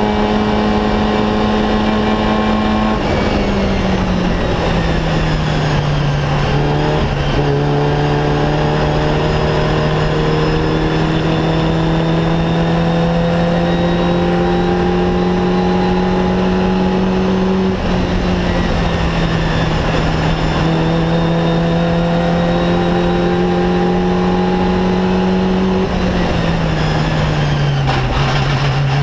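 Fun Cup race car engine heard from inside the cockpit at racing speed. Its pitch drops about three seconds in, climbs slowly over long stretches with a brief dip about eighteen seconds in, then falls in steps near the end as the car slows.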